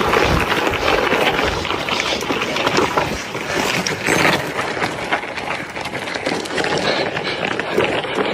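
Mountain bike ridden over rough ground: wind buffeting the microphone over a dense clatter of tyre crunch and frame rattle.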